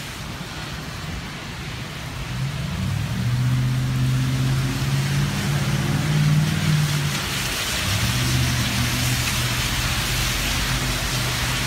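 Heavy rain and cars driving through standing water on a flooded street, their tyres spraying water, with the steady hum of car engines as they pass.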